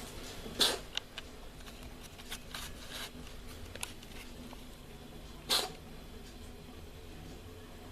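A cat coughing: two short, harsh coughs about five seconds apart, with a few small clicks between them.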